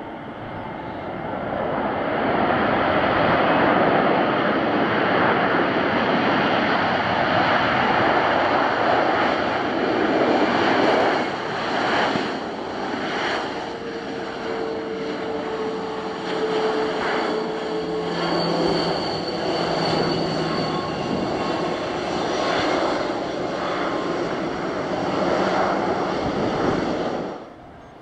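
Airbus A321-211's CFM56 jet engines roaring as the airliner rolls out along the runway just after touchdown. The noise builds over the first two seconds, stays loud with some swells, and cuts off suddenly near the end.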